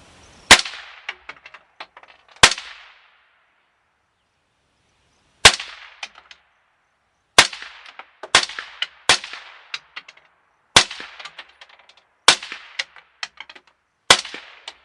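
Suppressed Eminence Arms AR rifle in 5.56/.223 firing about ten shots at an irregular pace, one to three seconds apart, each crack followed by a short echo.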